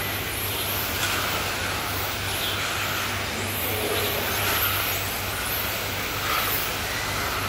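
Electric radio-controlled race cars with modified brushless motors lapping a track: a high-pitched whine that rises and falls over and over as the cars accelerate and brake. A steady low hum runs underneath.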